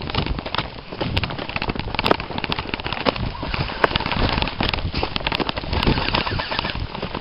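Airsoft guns firing in scattered, irregular pops and clicks, many shots overlapping, over a steady rustle of movement.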